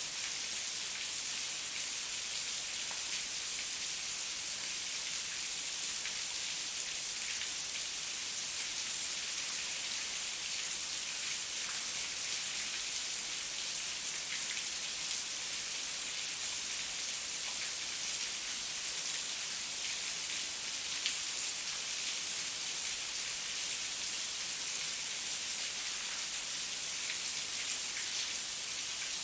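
Heavy rain falling steadily, a dense even hiss of drops with fine scattered patter on a surface.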